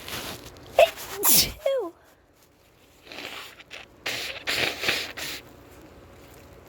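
A person sneezing, deliberately induced while congested: a sharp, voiced sneeze about a second in. A second run of loud, breathy bursts follows a few seconds later.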